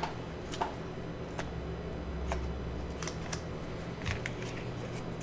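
Scattered light plastic clicks and knocks from a camera battery grip being handled: its battery door is opened and the Nikon battery is taken out. Beneath them runs a steady low hum.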